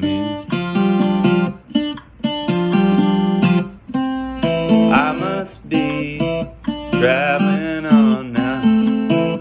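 Acoustic guitar playing chords and melody notes, plucked and strummed, with some held notes wavering in pitch.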